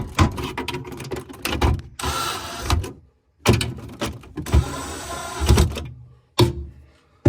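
Cordless drill driving screws into a plastic cover in several short runs, stopping and starting.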